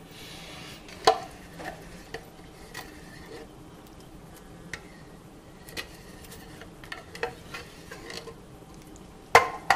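A plastic spoon scraping and knocking inside a tin can as cherry pie filling is scooped out and dropped into a bowl of liquid gelatin: scattered light taps, then two sharp knocks close together near the end.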